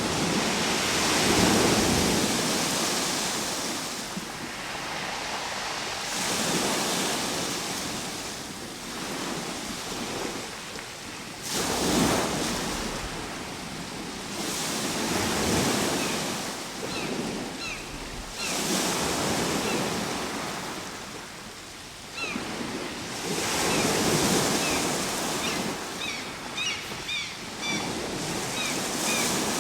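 Ocean waves breaking and washing on a shore, swelling and easing every few seconds. Short high chirps come in over the surf in the second half.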